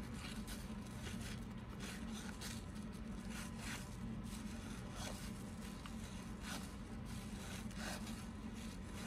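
Cardboard 1986 Fleer baseball cards sliding and rubbing against each other as a pack is thumbed through card by card: faint, irregular soft swishes over a steady low hum.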